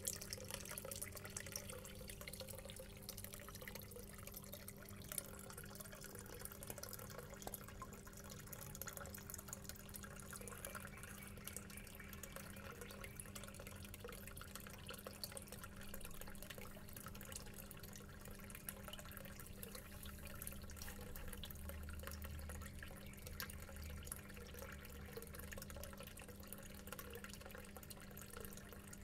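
Steady bubbling and trickling of aerated aquarium water in goldfish tanks, with a low steady hum underneath.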